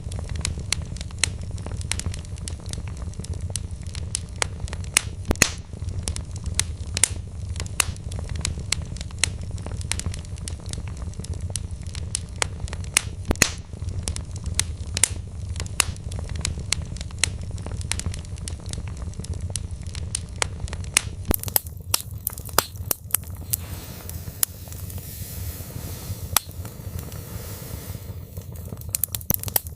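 Log fire crackling in a fireplace: frequent irregular sharp pops and snaps of burning wood over a steady low rumble. About two-thirds of the way through, the rumble falls away and a soft hiss comes up under the pops.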